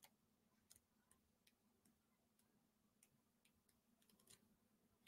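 Near silence: room tone with a faint low hum and faint, irregular ticks about two a second.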